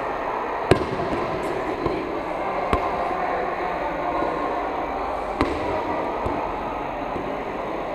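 A light ball being set back and forth by hand: about five sharp slaps a second or more apart as players' hands strike it, over steady hall noise.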